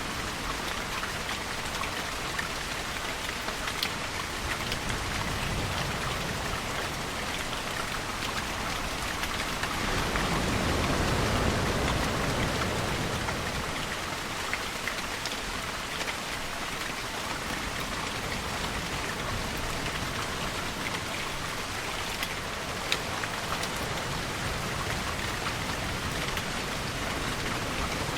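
Steady rain falling, with a few sharper drips. A deeper swell rises and fades about ten seconds in.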